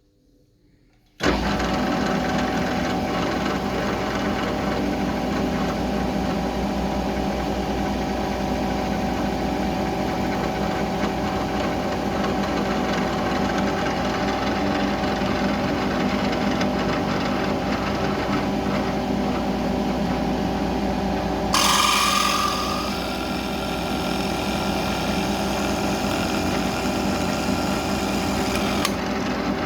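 CNC milling machine cutting aluminium: a steady machining sound of the spindle and cutter with several fixed tones, starting abruptly a little over a second in after near silence. It turns briefly louder and sharper about 22 seconds in.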